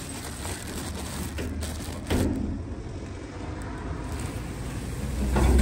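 Road traffic rumbling, swelling near the end as a vehicle passes close, with a brief knock about two seconds in.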